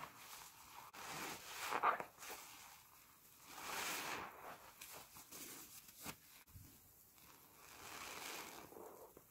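Soap-soaked sponges squeezed by gloved hands in thick suds: a wet squelch and crackle of foam that swells and fades with each slow squeeze, with a short click about six seconds in.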